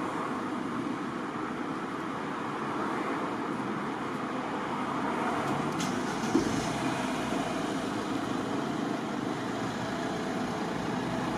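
Mercedes 2.2-litre diesel engine cranked briefly by its starter about six seconds in, catching at once and settling into idle, over steady background noise.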